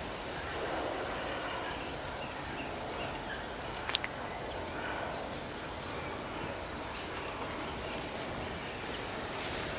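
Summer countryside ambience with insects chirping steadily in the grass, and one sharp click about four seconds in.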